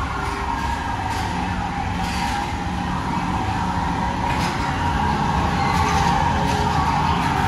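PeopleMover ride train running along its track, a steady hum and rumble from its linear induction motors and wheels, with a faint click about every two seconds.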